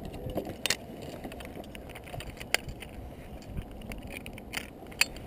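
Metal clicks and clinks of zipline carabiners and trolley hardware, a few scattered sharp ones over a steady low rumble.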